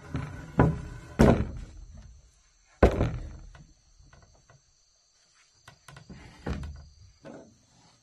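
Heavy wooden beam knocking and thudding against a plank floor as it is shifted into place: several loud thuds in the first three seconds, and a few more about six seconds in.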